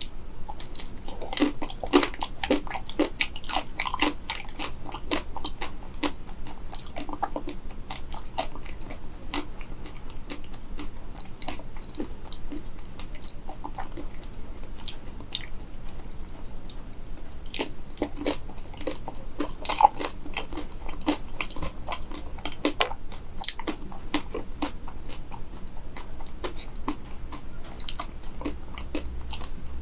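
Close-up crunching and chewing of a frozen mini banana coated in hard matcha chocolate, the crisp shell cracking between the teeth in irregular crunches. One louder crack comes about two-thirds of the way through.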